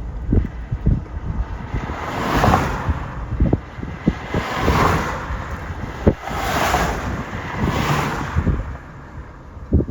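Wind buffeting the microphone in scattered low thumps, with four swelling whooshes about two seconds apart that rise and fade.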